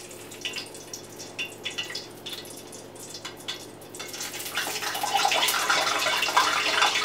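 Kielbasa sausage frying in hot oil in a pan: sizzling with scattered pops, growing louder and denser about halfway through.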